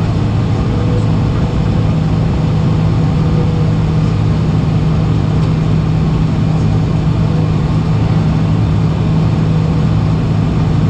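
Boeing 747-400's jet engines at idle thrust during a slow taxi, heard inside the cabin as a steady low hum with a faint higher tone over it.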